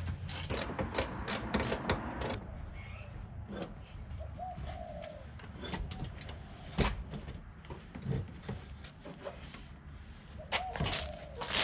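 Irregular clicks and knocks of work on a car's stripped interior, with a couple of sharper knocks and two short squeaks, about four and eleven seconds in.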